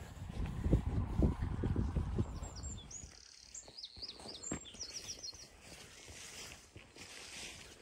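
Low rumbling thuds of a walker's steps through long grass for the first few seconds, then a small songbird singing a quick run of high chirps and trills for about three seconds.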